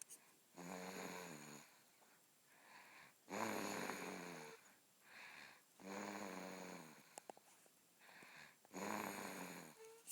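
Very loud snoring: four long snores about two and a half seconds apart, each followed by a softer breath.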